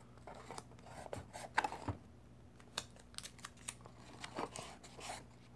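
Green painter's tape torn and pressed onto thin laser-cut plywood pieces: short, scattered crackles and light taps.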